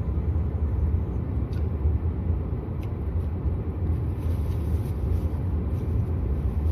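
Steady low rumble of a car heard from inside the cabin, an even drone without changes in pitch.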